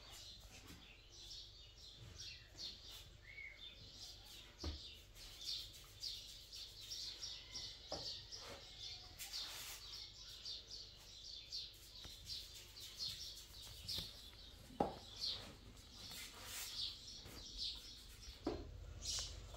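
Small birds chirping, many short high chirps in quick succession, with a few faint knocks, the sharpest about fifteen seconds in.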